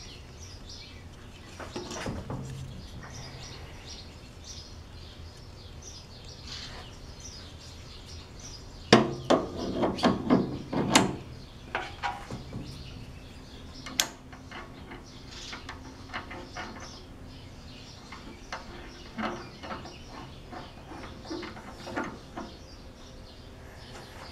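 Scattered knocks and light metallic clinks of tools and parts being handled at a table saw, with a cluster of louder knocks about nine to eleven seconds in. Birds chirp faintly throughout.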